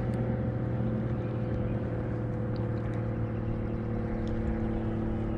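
A boat motor running steadily: an even, low hum that does not change in pitch.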